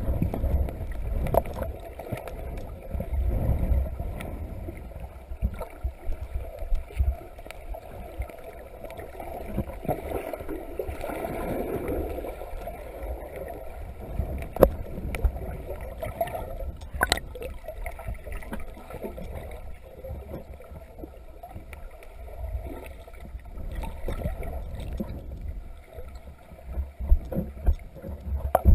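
Muffled underwater sound of a submerged camera: a low, uneven rumble of water moving around it, with scattered faint clicks and knocks. It turns louder and choppier near the end as the camera nears the surface.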